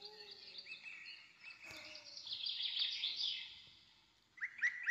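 Small birds chirping, many short high calls in quick succession, busiest in the middle and again near the end, with a single sharp click about one and a half seconds in.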